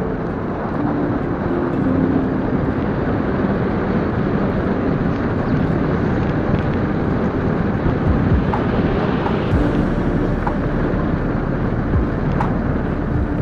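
Single-cylinder KTM motorcycle running at road speed, its engine drone buried under steady wind and road rush on the microphone.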